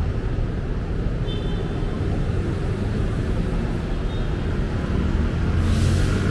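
Road traffic on a busy city avenue: the steady rumble of passing cars and buses. A short high tone sounds about a second in, and near the end there is a burst of hiss while a heavy engine hum grows louder.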